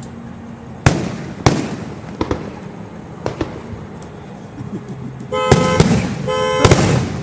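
Fireworks bursting, two sharp bangs about a second in followed by a few smaller pops. Near the end a car alarm starts, honking the horn in repeated blasts of about half a second.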